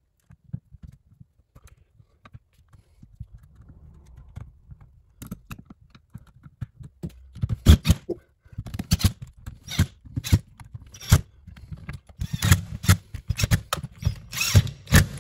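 Screws being driven by hand into the plastic clamshell housing of a Black & Decker 20V MAX Matrix drill, with scattered sharp clicks and knocks of plastic as the tool is handled on the bench, mostly in the second half.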